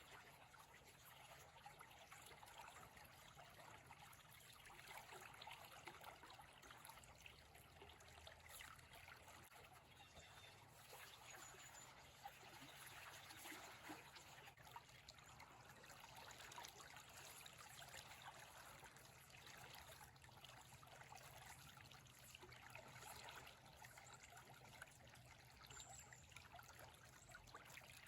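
Faint, steady trickling and babbling of stream water running over rocks.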